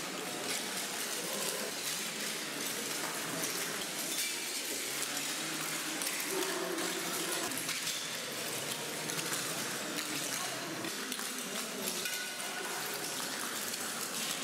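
Loose paper sheets covering the floor rustling and crackling under many people's feet, with a murmur of crowd voices underneath.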